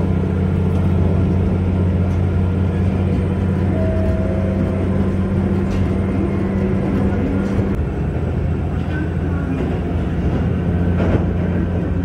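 Diesel railcar's engine running under power as the train pulls away from a station, heard from inside the carriage as a steady low drone. Its note changes about eight seconds in.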